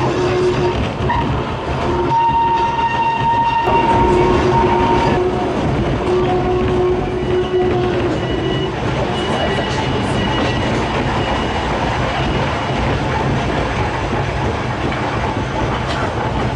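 Volk's Electric Railway car running along its narrow-gauge track, heard from inside the car: a steady rumble of wheels on rail, with a high whine that comes and goes over roughly the first half.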